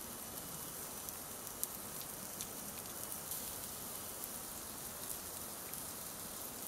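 Wood campfire burning with a steady low hiss and scattered small crackles and pops.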